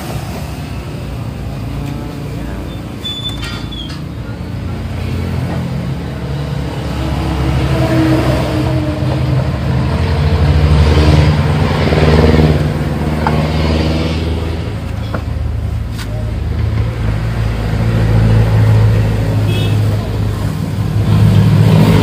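Motor vehicle engines running and passing, swelling and fading, loudest about halfway through and again near the end. A few light metallic clicks from the wheel being fitted.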